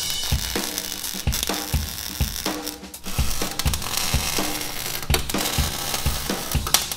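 Steady crackle of an arc welder laying a weld on a steel frame rail, under background music with a regular drum beat.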